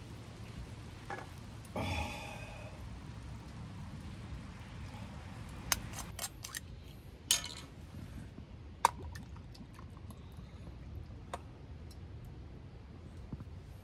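A few light clinks and taps of metal camp cookware and tableware, scattered singly over a faint steady background.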